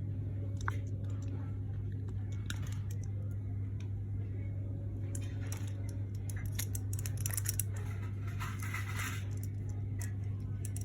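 Scattered small clicks and handling rustles, busiest in the middle of the stretch, over a steady low hum.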